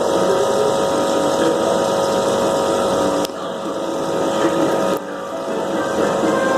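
Aquarium pump running with a steady hum and water noise; the level drops abruptly twice, about three seconds in and again about five seconds in.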